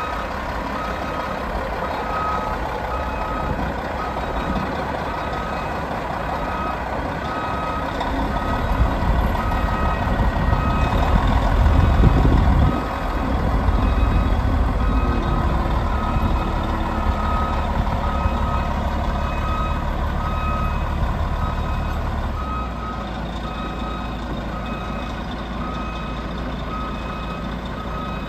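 Caterpillar 16G motor grader backing up: its reversing alarm beeps about once a second over the steady run of its diesel engine. The engine swells louder for a few seconds near the middle and drops back suddenly.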